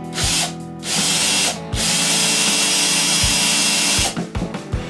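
Electric drill with a thin twist bit boring into the end grain of a wooden stick, running in three bursts: a short one near the start, another about a second in, then a longer run that stops about four seconds in.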